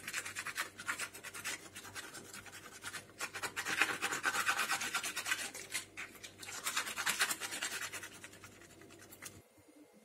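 Two New Zealand green-lipped mussel shells rubbed hard against each other in water, a rapid, steady scraping to scour debris off the shells. The scraping stops shortly before the end.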